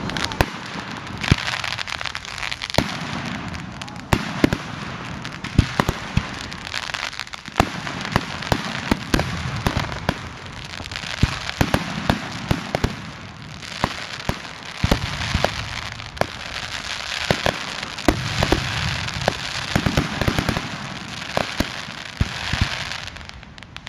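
Fireworks display: shells launching and bursting in a rapid, irregular series of sharp bangs, several close together at times.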